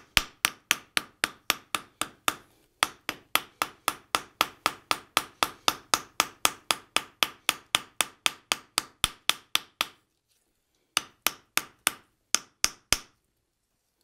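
Ball peen hammer striking heated 1/8-inch sheet metal on an anvil, a quick steady run of light blows about four a second that texture the surface. The blows stop about ten seconds in, and a handful more follow a second later.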